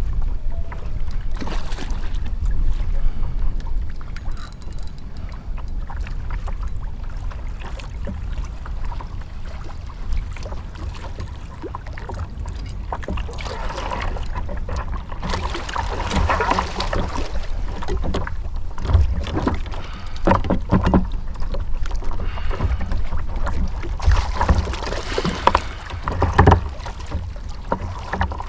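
Wind noise on the camera microphone with water against a kayak hull. From about halfway on, repeated splashing as a hooked jack crevalle thrashes at the surface beside the kayak.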